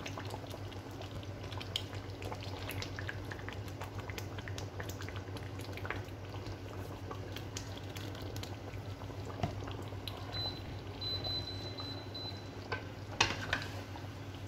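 Chicken and potato curry bubbling at a simmer in a pan, with small popping crackles over a steady low hum, while coconut milk is poured in from a carton. A few sharp knocks of a spoon against the pan come near the end.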